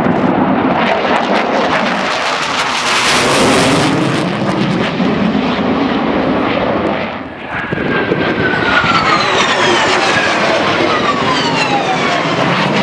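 Jet fighter flying a display pass, its engine making a loud, dense roar. The noise dips briefly about seven seconds in, then comes back with a falling whine through the last few seconds.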